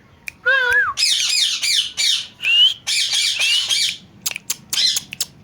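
Pet parrot squawking and chattering: a short wavering call, then about three seconds of rapid, harsh, high-pitched squawks, ending in a string of short sharp clicks.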